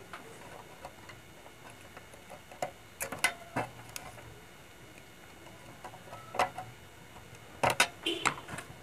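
Scattered sharp clicks and light knocks from hands handling the parts and wiring of an opened gas compressor in its metal housing. They come in small clusters about three seconds in, again around six and a half seconds, and loudest near the end.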